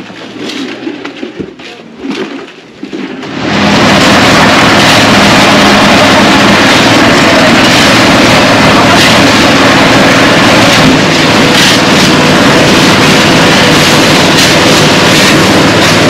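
Quieter work sounds with a few knocks, then about three and a half seconds in a loud, steady engine noise from construction machinery starts and keeps going.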